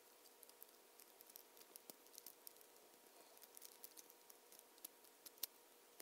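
Faint, scattered light clicks and ticks of plastic Lego Technic pieces (beams, axles, gear) being handled and pressed together, with the sharpest click about five and a half seconds in.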